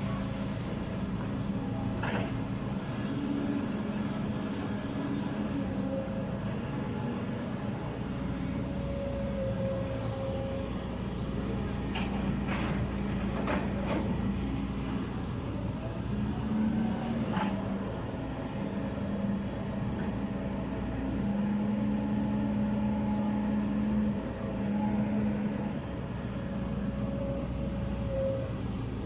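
Backhoe loader's diesel engine running, swelling and easing as the load changes, with a whine at times and a few sharp knocks, one about two seconds in and several near the middle.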